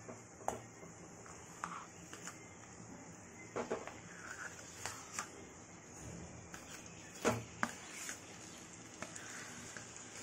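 Mashed boiled potato being scraped from a steel bowl into a stainless-steel kadhai, with a handful of light clinks and knocks of the spatula against the metal, the loudest about seven seconds in.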